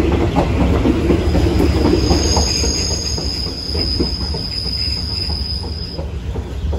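Passenger train wheels rolling on the rails, a steady low rumble with scattered clicks, and a high steady wheel squeal from about a second in until near the end, joined briefly by a second, higher squeal.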